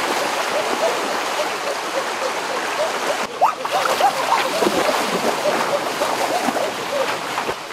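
Heavy splashing and churning of shallow stream water as people wade and lunge through it, over the steady rush of the flowing stream.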